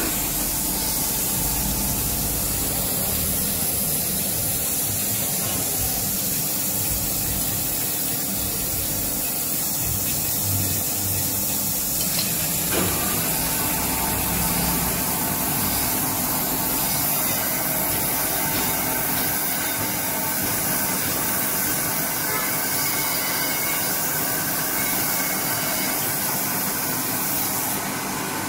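Crankshaft grinding machine running, its abrasive wheel grinding a journal of a JCB engine crankshaft under a flood of coolant: a steady spraying hiss over a low machine hum. A single brief click about halfway through.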